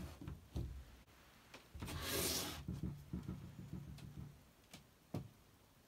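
Handling noise: rubbing, with a louder swish about two seconds in and a few light clicks and knocks.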